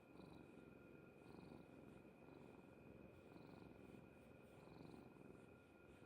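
Domestic cat purring faintly: a low, steady rumble that swells and eases about once a second with its breaths.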